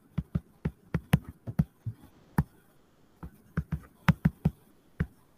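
Stylus tapping and clicking on a tablet screen during handwriting: irregular sharp taps in short clusters, a few a second, with short pauses between.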